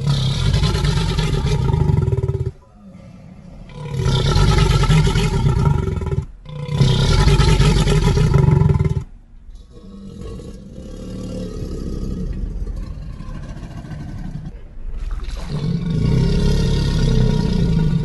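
Designed creature sound effect for a Purussaurus, a giant prehistoric caiman: deep, low-pitched roars lasting two to three seconds each, three in quick succession, then a quieter stretch of growling, then a fourth roar near the end.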